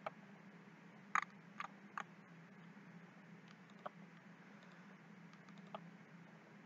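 Scattered clicks of a computer mouse and keyboard, about six in all with three in quick succession about a second in, over a faint steady low hum.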